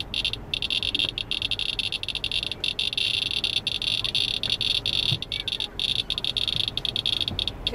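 Handheld Inspector Geiger counter chirping rapidly, its high-pitched counts running together into a near-continuous buzz broken by brief gaps. The fast count rate is the sign of gamma radiation from a radioactive cargo close by. A steady low road rumble from the car lies underneath.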